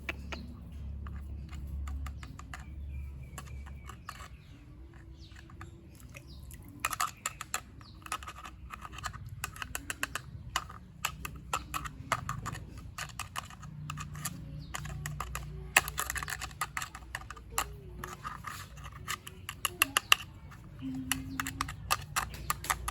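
Plastic toys and packaging being handled during an unboxing, giving rapid clicks and crackles that start about seven seconds in, over a low steady hum.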